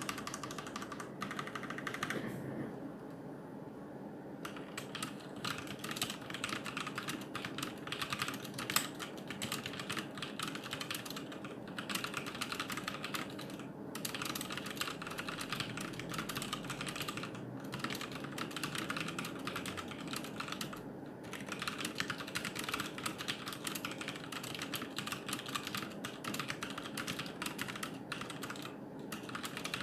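Fast typing on a HyperX Alloy FPS RGB mechanical keyboard with Kailh Silver Speed linear switches: a rapid, nearly continuous stream of key clacks with short pauses now and then.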